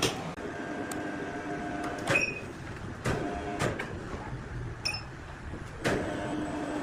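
Steady hum of sawmill machinery, broken by several sharp wooden and metallic knocks as a freshly sawn slab is lifted off the log on a hoist.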